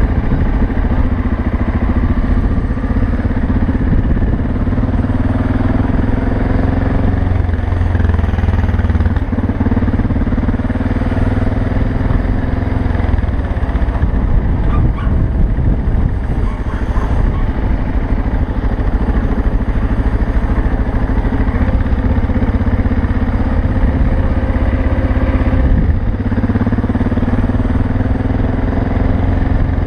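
BMW F 650 GS single-cylinder engine running under way on a dirt road, a steady loud drone whose note drops and shifts a couple of times before steadying again near the end.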